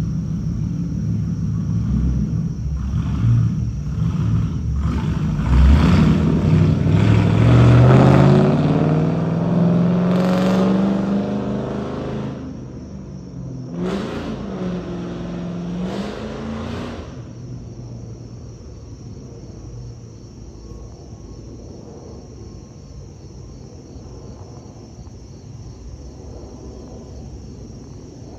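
Boeing 737 MAX 8 airliner's CFM LEAP-1B turbofan engines rumbling overhead on climb-out, loudest about eight seconds in with a rising sweep in pitch as it passes over, then fading away into the distance.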